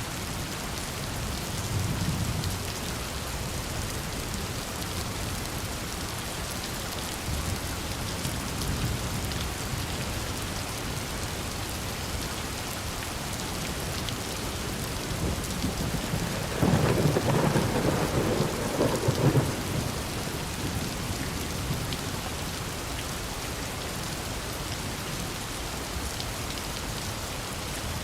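Steady rain falling, with a loud roll of thunder a little past the middle lasting about three seconds, and fainter low rumbles earlier on.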